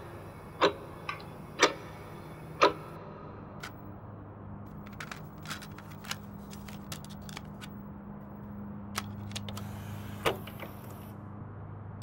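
A clock ticking about once a second for the first few seconds. After that come light scattered clicks of a disc case and stereo being handled, over a faint low hum.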